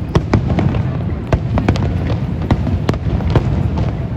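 Fireworks display: sharp cracks and bangs going off several times a second at irregular intervals, over a continuous low rumble of booms.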